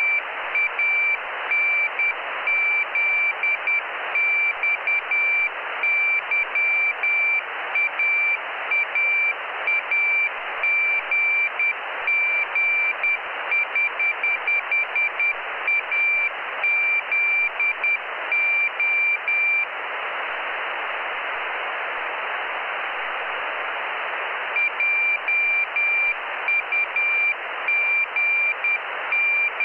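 Morse code (CW) telemetry beacon from the Jugnu cubesat received by radio: a single high-pitched tone keyed in dots and dashes over steady receiver hiss. Past the middle the tone stops for about five seconds, leaving only the hiss, then the keying resumes.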